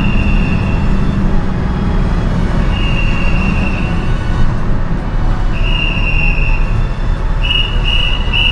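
A whistle blown in three long single blasts about three seconds apart, then a quick run of short pips near the end, over a loud, steady low rumble of engines and machinery on a ferry's vehicle deck.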